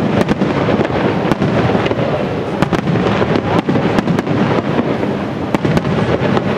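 Professional aerial fireworks display: shells bursting one after another in a dense, unbroken barrage of booms and crackling.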